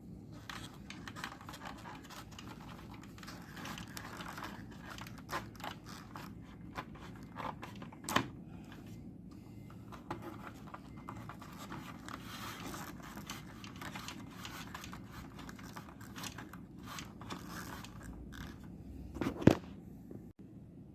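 Scraping, crinkling and small clicks of hands working on a UPS while its battery is swapped out, with a sharp knock about eight seconds in and a louder one near the end.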